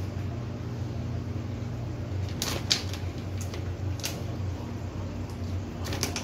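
Plastic bag of shredded mozzarella crinkling a few times, in short sharp rustles, as a hand takes cheese out of it. A steady low hum runs underneath.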